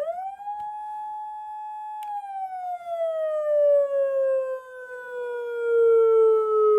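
Electronic siren tone from a PATLITE SAP-50 siren amplifier, a single wailing note that rises quickly, holds steady for about two seconds, then slowly slides down in pitch for the rest of the time. A faint click comes just as the pitch starts to fall.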